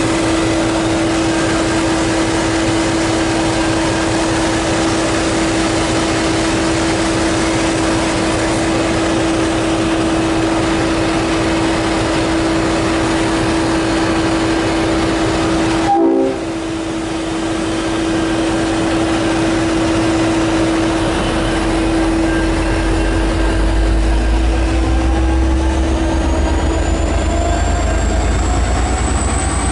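V/Line N-class diesel locomotive running close by with a steady hum, briefly cut off just past halfway. About two-thirds of the way through the engine revs up, with a deep rumble and a rising whine building as it works up to pull away.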